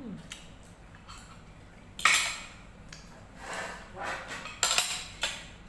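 Metal cutlery clinking and scraping against plates and bowls during a meal: a run of separate sharp clinks, the loudest about two seconds in and a quick cluster of several more near the end.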